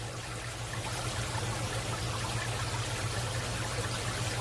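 Aquarium water running steadily, the filter outflow splashing and trickling into the tank, over a low steady hum.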